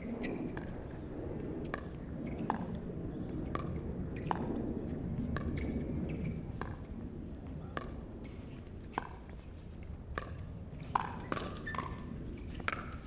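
Pickleball paddles hitting a plastic ball back and forth in a rally: sharp pocks about one a second, coming quicker near the end. Under them runs a steady low background murmur.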